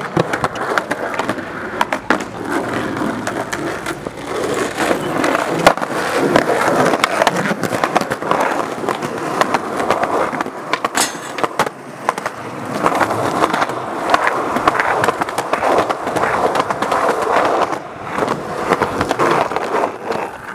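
Skateboard wheels rolling over concrete with a steady rumble, broken by sharp clacks every few seconds as the board is popped and lands.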